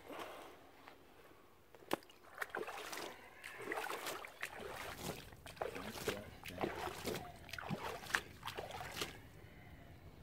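Lake water splashed and sloshed by hand over a carp lying on a wet unhooking mat at the water's edge, keeping the fish wet before release. A sharp knock about two seconds in, then a run of irregular splashes that dies down near the end.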